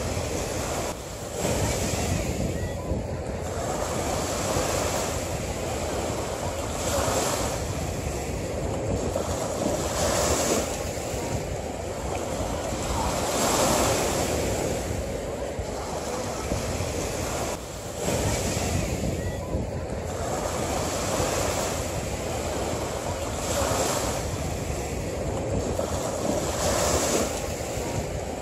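A steady rushing noise that swells and fades every few seconds, like surf.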